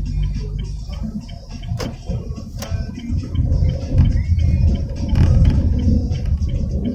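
Car driving, heard from inside the cabin: a steady low rumble of engine and tyres on the road, with a couple of sharp knocks or rattles about two seconds in, growing louder from about four seconds in.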